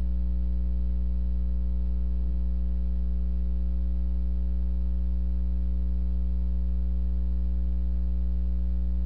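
Steady electrical mains hum on the recording: a loud low drone with a ladder of fainter higher overtones, unchanging throughout.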